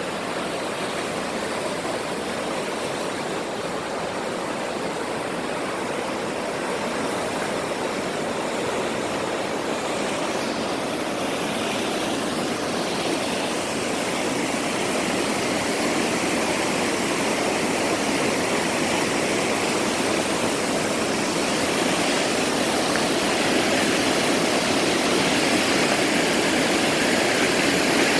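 Mountain stream rushing over rocks, a steady rush of water that grows gradually louder.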